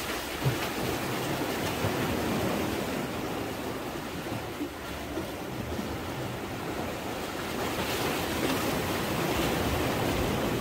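Sea waves washing against the concrete tetrapods of a breakwater: a steady rushing surf that swells a little in the second half.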